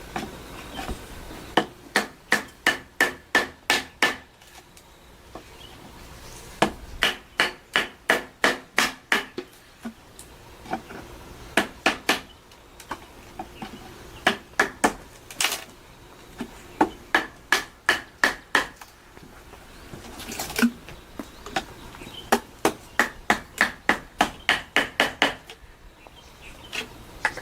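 Hammer blows in quick runs of about four a second, with short pauses between runs, typical of nails being driven during house repair work.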